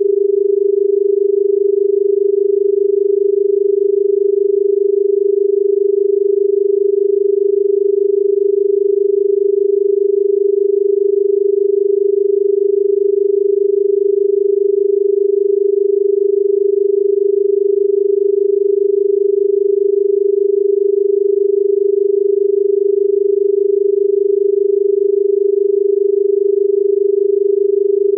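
Indian telephone dial tone: a continuous 400 Hz tone, amplitude-modulated at 25 Hz, held steady without a break. It signals that the exchange is ready to receive the number.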